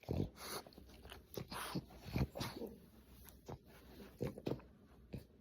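A dog chewing, with irregular crunching bites.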